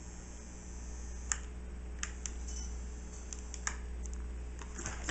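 Small, irregular clicks and ticks from soldering a wire onto an LED strip's pads with a soldering gun, the tip and wire tapping and scraping on the strip, over a steady low hum.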